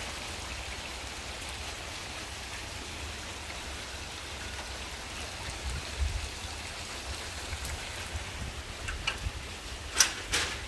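Steady rain falling on a yard and nearby surfaces, an even hiss throughout. Two sharp clicks come near the end.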